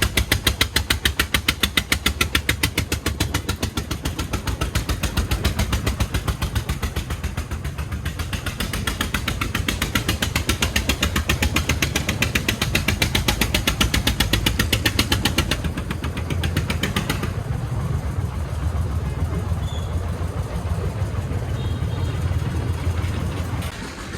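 Single-cylinder diesel engine of a homemade công nông farm truck chugging, with a fast even beat of about ten firing pulses a second. About two-thirds of the way through, the chugging fades into a smoother, lower engine sound.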